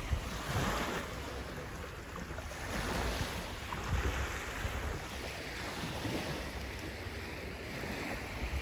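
Small waves washing in and lapping on a pebble shore, surging every few seconds, with wind rumbling on the microphone.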